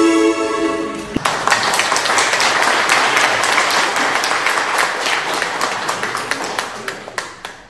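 Dance music cuts off about a second in, then an audience applauds with many rapid claps, dying away toward the end.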